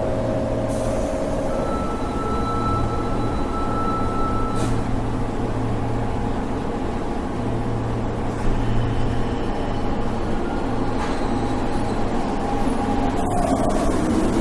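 Subway train running with a steady low rumble. Faint thin whines come and go over it, one near the start and another near the end.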